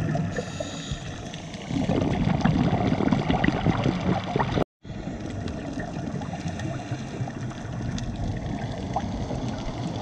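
Underwater sound picked up through a camera housing on a scuba dive: a diver's exhaled bubbles gurgling and crackling over a steady water rush, louder in the first half. The sound cuts out for a moment a little before halfway, then goes on as a steadier, quieter rush.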